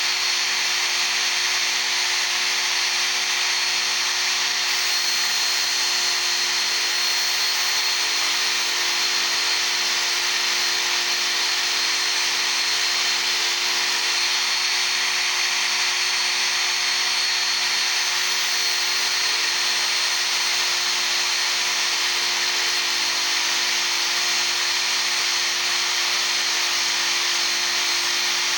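Work Sharp Ken Onion Edition belt sharpener running steadily with a steel chisel ground against its abrasive belt: an even motor hum with a constant high grinding hiss, unchanged throughout.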